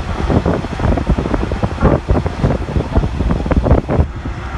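Running noise heard inside a moving JNR-type 115 series electric train: a steady low rumble from the wheels and car body, with dense, irregular knocks and rattles.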